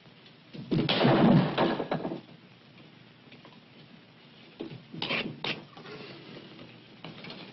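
A heavy, dull bang about a second in that lasts about a second, then two sharp knocks half a second apart about five seconds in.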